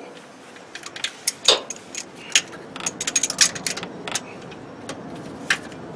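Irregular metallic clicks and clinks of a socket wrench and extension being fitted and worked on a bolt of a Ford F-150's starter motor, clustered between about one and four seconds in, with one more click near the end.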